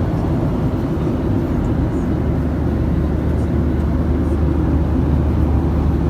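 Steady low drone of an airliner's cabin in flight: engine and airflow noise, unchanging throughout.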